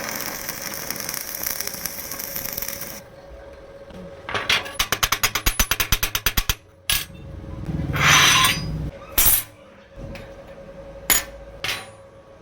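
Metalworking tool sounds: a steady hiss for about three seconds, then a fast run of regular clicks, a short burst of noise and a few sharp metallic knocks.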